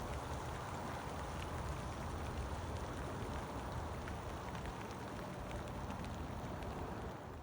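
Steady rain falling on a lake: an even hiss with scattered faint drop ticks.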